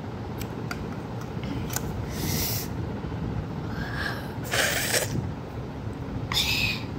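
A boy taking three sharp, hissing breaths through his mouth, the way one cools a mouth burning from very spicy noodles, with a few light clicks in the first two seconds over a steady low background noise.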